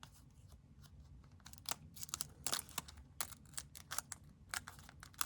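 Foil wrapper of a trading-card pack crinkling and tearing as it is opened: a run of sharp crackles that starts about a second and a half in.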